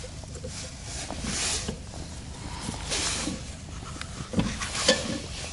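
Hand work on a screw-type wheel hub puller as its T-handle is turned on a car's rear hub: two soft hissing swells, then a few light metal clicks about four and a half seconds in.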